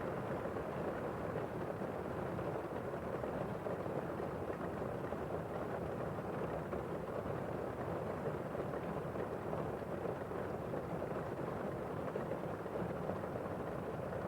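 Heavy rain heard from indoors: a steady, muffled hiss with little high end and no breaks.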